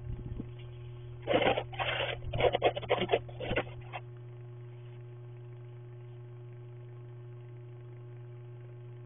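Snow brush scraping snow off a car's windshield in a quick run of strokes from about a second in to about four seconds in, over a steady low hum, heard through a security camera's microphone.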